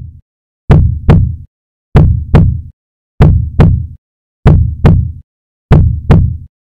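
Slow heartbeat sound effect: five loud, deep double beats, lub-dub, about one pair every second and a quarter.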